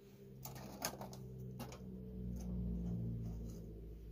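A few light clicks and taps from handling a cardboard box while measuring it, over a low steady hum that grows louder in the middle.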